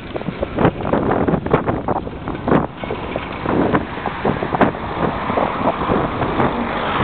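Wind buffeting the microphone in irregular gusts, a loud rushing noise.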